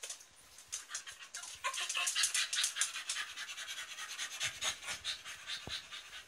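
Rapid, rhythmic panting close to the microphone, several quick breaths a second.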